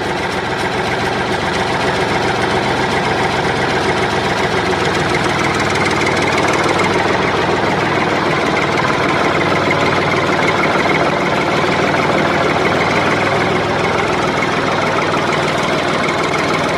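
Sound effect of a tractor engine idling steadily, cutting off suddenly at the end.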